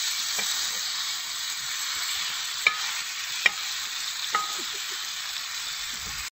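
Fish steaks sizzling in oil on a cast-iron griddle, a steady hiss. A metal spatula clicks sharply against the pan three times around the middle.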